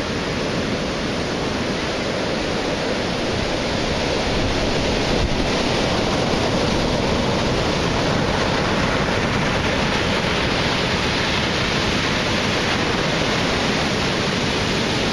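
Heavy surf of 7–10 ft hurricane swell breaking and washing around wooden pier pilings: a steady rush of crashing water, a little louder from about four seconds in.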